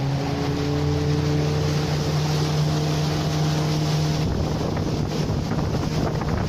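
Small tour boat's engine speeding up and running steadily under way, with water and wind rushing past. About four seconds in, the engine note drops back and the rush of wind and water is left.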